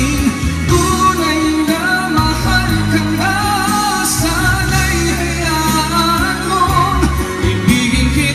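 A man singing into a videoke (karaoke) microphone over a karaoke backing track, his amplified voice carrying the melody above steady bass notes.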